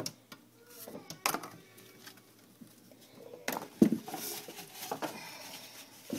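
Handling noises from cardboard egg-carton trays and a plastic bin being moved: scattered clicks and rustles, with one loud knock a little past the middle.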